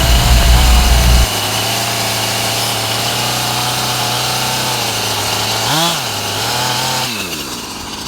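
Small chainsaw running under load as it rips a log along a guide board, at a steady pitch after a loud low rumble in the first second. About six seconds in the engine note dips and recovers, then near the end the revs fall away.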